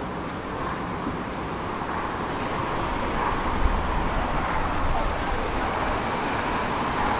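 Tram running along its tracks: a steady rolling rumble that grows a little louder about three and a half seconds in.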